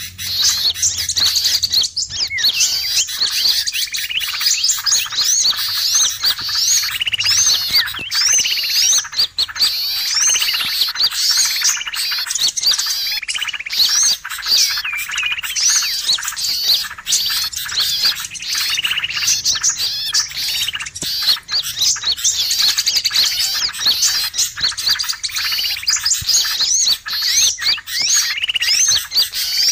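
A dense, unbroken chorus of many small songbirds chirping and trilling at once, high-pitched and overlapping: a bird-lure recording of noisy small birds, mixed with sooty-headed bulbul (kutilang) calls, played to draw wild birds in.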